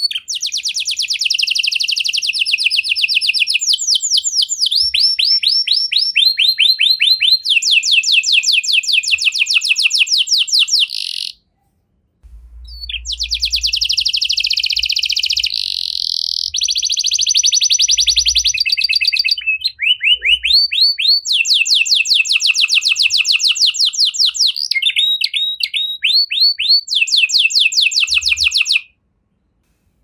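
Red-factor canary singing a long, loud song of rapid trills: each phrase is a fast run of one repeated note, and the pitch and note shape change every second or two. The song breaks off for about a second partway through and stops near the end.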